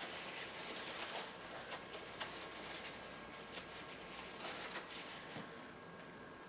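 Faint rustling and crinkling of a paper towel wiping excess glue off a small 3D-printed plastic part, with scattered crisp little crackles.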